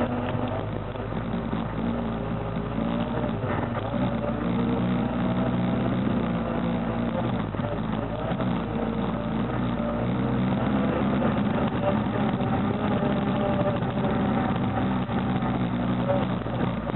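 Sport ATV's single-cylinder four-stroke engine running on a dirt trail, heard from on board. It runs at a fairly steady level, its pitch shifting a little up and down as the throttle changes.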